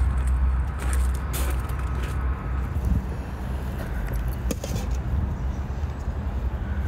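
Steady low outdoor rumble, with a few light clicks and knocks as a steel bowl of vegetables is handled, one sharper knock about four and a half seconds in as the bowl is set down on a stone.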